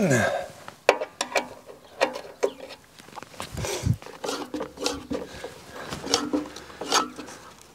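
Cutting reel of a Toro eFlex greens mower turned by hand against its bedknife in a paper cut test: irregular sharp clicks and snips with a short metallic ring as the blades pass the bedknife, with paper rustling between them.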